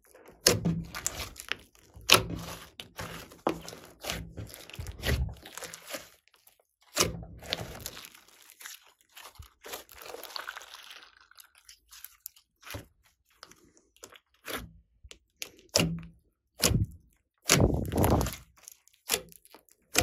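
Hands kneading, squeezing and stretching a large lump of glossy slime: wet squishing broken by many sharp, irregular clicks and pops.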